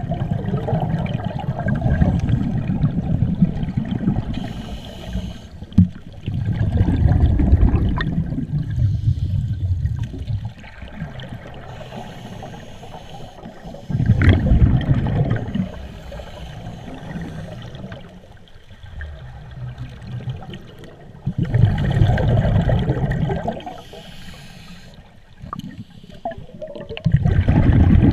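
Scuba regulator exhaust bubbles heard underwater: five bursts of low bubbling a few seconds each, repeating about every six to seven seconds with the diver's breathing, with quieter stretches between.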